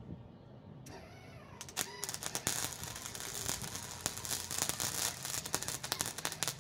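A wire-feed welder's arc crackling and spitting steadily while a bead is laid on steel angle iron. It is preceded about a second in by a brief rising whine and a few sputtering starts.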